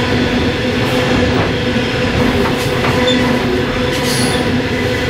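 Loaded coal train's hopper wagons rolling past: a steady rumble of steel wheels on rail with a continuous hum. Brief high wheel squeals come about halfway through and again near the end.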